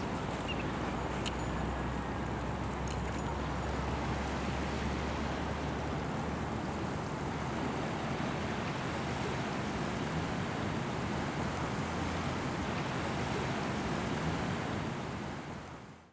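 Small surf washing steadily on a beach, with a low wind rumble on the microphone; the sound fades out near the end.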